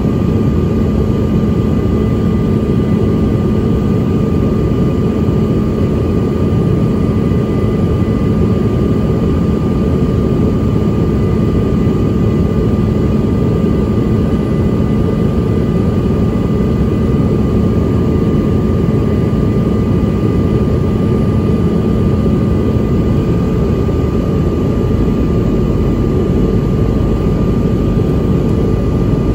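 Cabin noise inside a Bombardier CRJ-900 regional jet in descent: a steady rush of air and engine noise with a low hum and a thin high whine from its rear-mounted turbofan engines.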